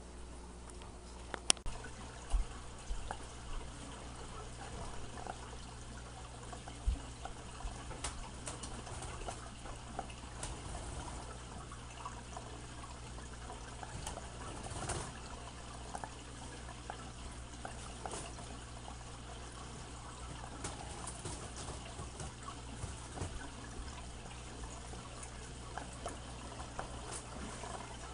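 Aquarium filter trickling steadily with a low hum, under scattered light taps and scrapes from a cardboard box being cut open.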